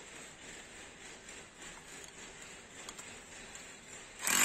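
Faint background, then about four seconds in a 1500 W rotary hammer with a chisel bit starts up loud, chiselling into a stone block.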